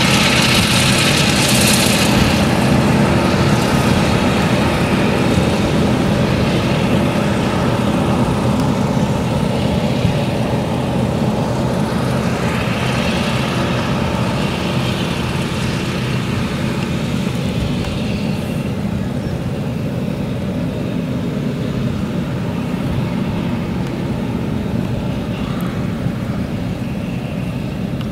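Claas Jaguar 970 forage harvester's MAN V8 engine running under load while chopping sorghum, together with the tractor hauling the forage trailer alongside. A steady, heavy machine din that grows gradually quieter as the machines move away.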